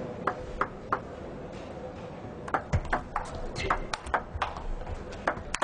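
Table tennis ball being struck back and forth in a rally, sharp separate ticks as it hits the bats and bounces on the table. There are a few spaced ticks in the first second, then a quicker run of them from about halfway through.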